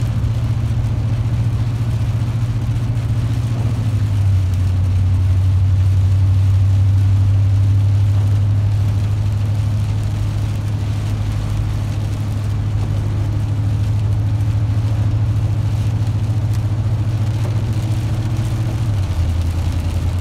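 Car engine and tyre drone heard from inside the cabin while driving on a wet road. It is a steady low hum that shifts down in pitch about four seconds in and again near the end.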